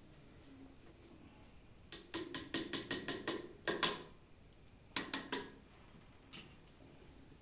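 Sharp clicks and clinks of hand tools and metal fittings being handled while a sink vanity cabinet is assembled: a quick run of about a dozen clicks about two seconds in, then two more about five seconds in.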